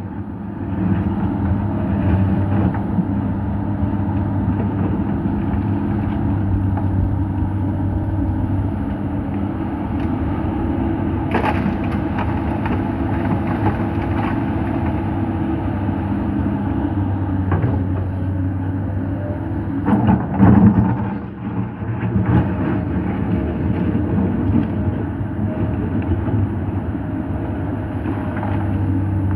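Komatsu PC200 excavator's diesel engine running steadily while its bucket digs into and crunches sandstone, with scattered cracks and knocks of breaking rock. There is a sharp knock about eleven seconds in and a louder clatter about twenty seconds in.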